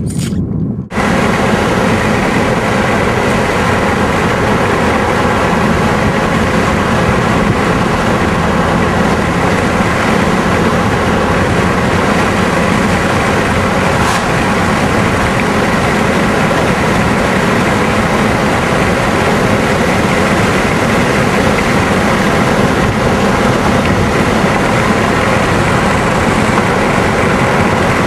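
Steady road and engine noise of a moving vehicle, cutting in abruptly about a second in and running evenly without change.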